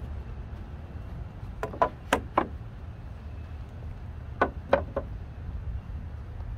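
Two quick clusters of sharp knocks, about four knocks each, a few seconds apart, over a steady low rumble.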